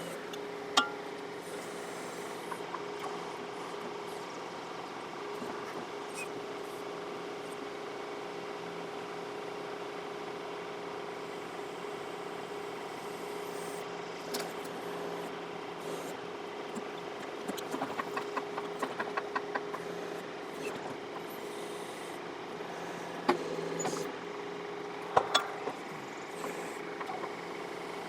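John Deere 4052R compact tractor's diesel engine running steadily while it works the backhoe. Now and then there are sharp knocks, and a quick run of rattling ticks comes about two-thirds of the way through.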